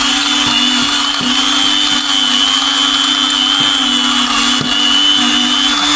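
Small stainless-steel high-speed electric grinder running flat out with a steady high whine and faint irregular ticks, grinding a stone cup to powder.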